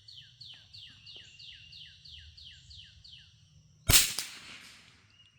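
A bird sings a rapid series of about a dozen repeated down-slurred notes over a steady faint high drone. About four seconds in comes a single sharp shot from a Brno Model 1 .22 LR rifle, the loudest sound, with a short smear of echo and a smaller click just after.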